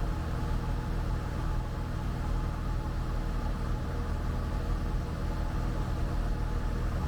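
Cessna 172 Skyhawk's piston engine and propeller droning steadily in cruise, heard from inside the cabin.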